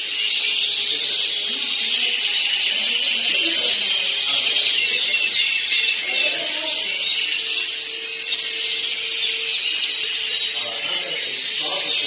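Yorkshire canary singing, a continuous run of rapid high-pitched trills and chirps.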